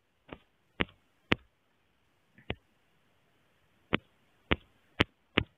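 About eight sharp single clicks at uneven intervals, from taps on a smartphone touchscreen while a slider value in the editing app is changed.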